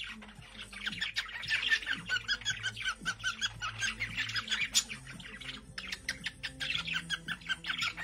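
White-faced cockatiel chirping: a quick, steady run of short, sharp chirps, several a second.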